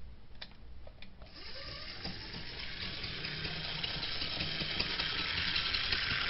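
Bachmann 2-8-0 model steam locomotive's electric motor and gears running on a test track, a steady whir that grows louder as the speed is turned up. The owner says this engine runs slowly and stalls at random as its gears bind. Two faint clicks come in the first second or so.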